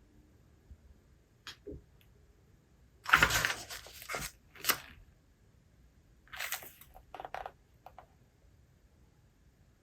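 Paper pages of a book being turned and handled: a run of short rustles and crinkles, the loudest about three seconds in.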